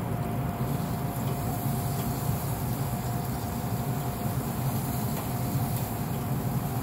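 Pellet grill's fan running: a steady low hum with a constant faint whine over it.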